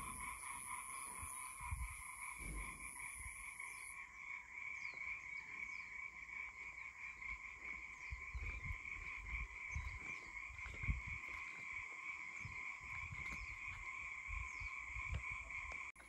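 Steady, unbroken chorus of calling animals, a continuous trill at two pitches, with irregular low rumbles on the microphone.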